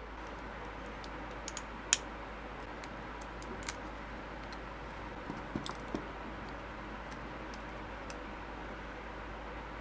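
Scattered light clicks and taps of a mouse and small tools being handled during a repair, over a steady background hiss. The loudest click comes about two seconds in, and a few close together come just after the middle.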